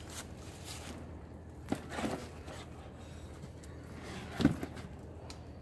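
Handling noises at a wire guinea pig cage, as a hand moves a foam shelter box: a few short knocks and scrapes, the loudest about four and a half seconds in, over a low steady hum.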